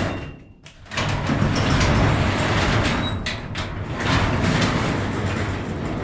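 Large door of an equipment shed being opened: a sharp click at the start, then, from about a second in, a steady rumbling rattle as the door runs open along its track.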